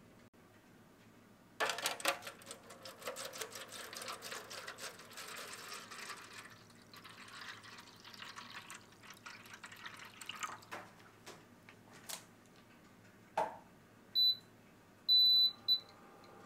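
Water glugging and splashing as it is poured from a plastic bottle into an aluminium foil tray, for about nine seconds. Then a knock, and an electric ceramic hob beeps three times, short, long, short, as it is switched on.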